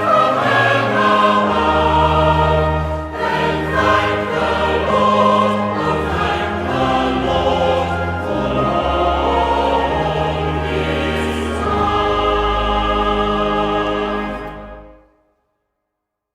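Choir singing a hymn with accompaniment, ending on a long held final chord that fades out about fifteen seconds in.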